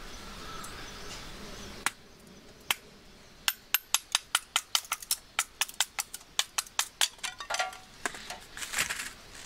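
Knife blade shaving a thin wooden stick while rough-carving cooking chopsticks: a quick run of sharp clicks, about four or five a second, with a few scraping sounds near the end.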